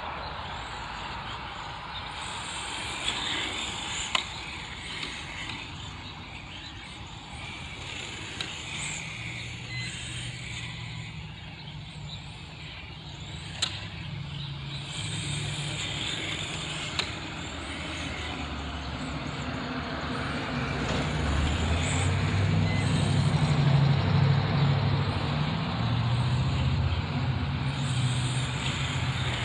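Serpent Project 4X electric RC touring car lapping, its brushless motor whining, rising and falling in pitch with the throttle, with a few sharp clicks. In the second half a deeper engine rumble from a road vehicle builds up and becomes the loudest sound.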